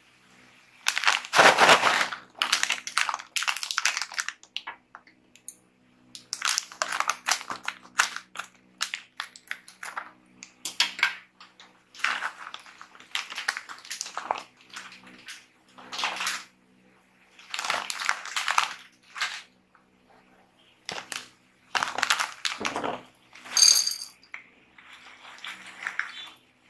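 Plastic snack pack of mixed nuts crinkling in repeated bursts as it is handled and opened, then the hard pieces (peanuts, green peas, cornick) clattering into a plastic tub near the end.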